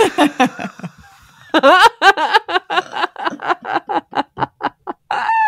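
Women laughing: a short burst at first, then after a brief lull a long run of quick pitched 'ha-ha' pulses, about five or six a second.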